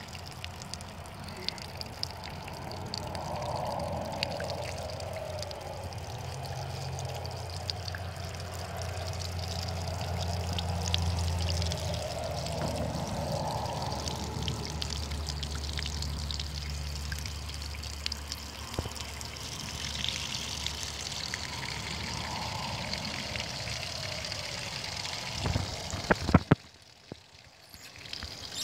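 Water pouring steadily from an outdoor brass hose spigot and splashing down below it, with a few sharp knocks near the end.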